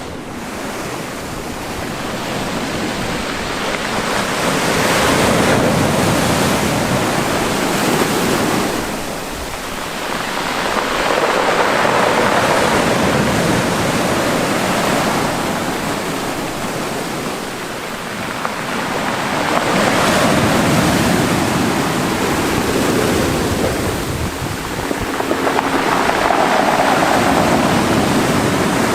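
Mediterranean Sea waves washing in and drawing back, swelling and fading about four times.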